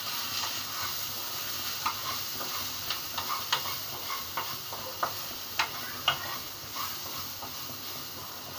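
Chopped onions, sesame seeds and cashews frying in a little oil in a kadhai, with a steady sizzle. The stirring spoon scrapes the pan and knocks against it in about a dozen irregular sharp clicks.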